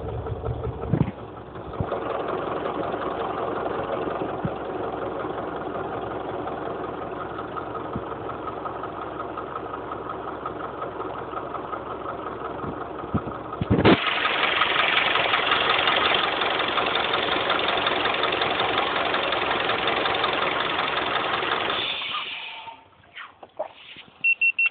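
Honda CR-V engine running, recorded for a knock the owner hears in it. About two-thirds of the way through it gets louder and brighter, then cuts off near the end, followed by a few clicks and a short high beep.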